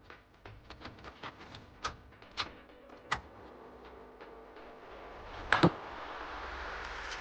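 A string of light taps and knocks from workshop handling of parts, then two sharp knocks close together about five and a half seconds in, followed by a steady hiss with a low hum.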